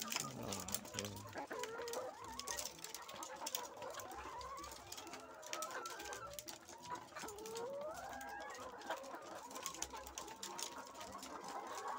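Caged laying hens clucking, with drawn-out calls that rise and fall in pitch and scattered light clicks.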